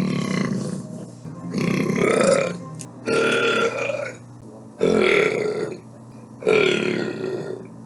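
A person burping repeatedly: five drawn-out burps in a row, about one every second and a half.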